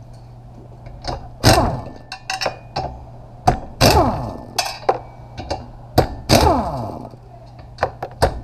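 Pneumatic impact wrench, an Earthquake air impact on an air hose, fired in a series of short bursts to break loose and spin off the bolts holding a fan clutch to its fan blade. Each burst hammers and then falls in pitch as the air motor winds down when the trigger is released.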